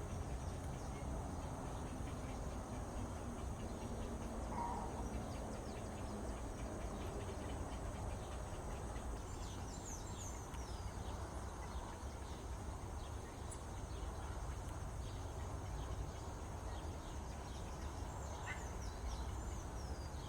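Small birds giving short, high, falling calls in two bursts, about nine seconds in and again near the end, over a steady low rumble.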